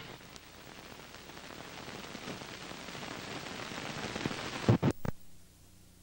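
Hiss and static of an old film soundtrack running on after its music has ended, slowly growing louder. Near the end come a few sharp pops, then only a faint low hum.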